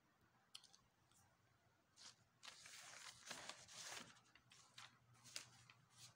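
Faint paper rustling and handling noise as the sheets of handwritten notes are shifted, in irregular scrapes and ticks from about two seconds in to near the end.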